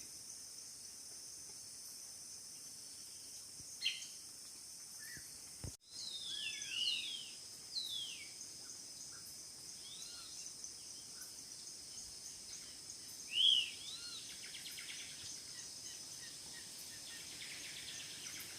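A steady, high-pitched insect chorus from crickets or cicadas, with birds calling over it in short arched chirps and whistles, most of them from about six to fourteen seconds in and the loudest near the end of that stretch.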